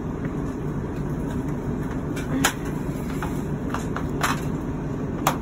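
Steady low rumble with three sharp knocks in the second half and a few fainter taps between them: the clatter of items being shifted around.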